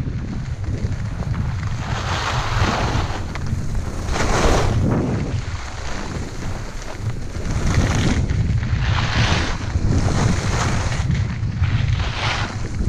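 Wind rumbling on a GoPro's microphone as a skier runs down a groomed piste, with the skis hissing and scraping over the snow in several louder surges at the turns.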